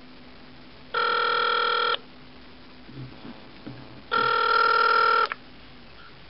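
Telephone ringing on an outgoing call, heard over the phone: two electronic rings, each about a second long, about three seconds apart.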